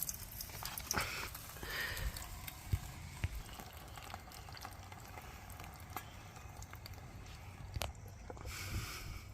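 Potato chips frying in hot oil in a pan on a Trangia spirit stove: a steady sizzle, with a few sharp clicks and knocks through it.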